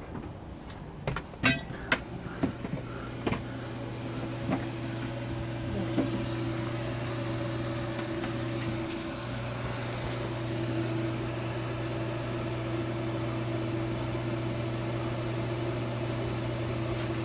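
A few sharp clicks, then a microwave oven starts and runs with a steady electric hum under load, drawing about 11 amps of AC through the sailboat's inverter.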